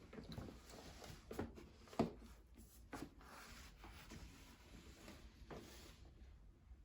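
Rustling and rubbing handling noise with a few soft knocks, the loudest about two seconds in; it stops about six seconds in.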